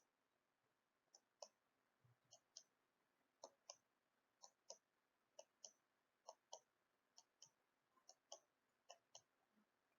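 Near silence with faint, short clicks coming in pairs roughly once a second.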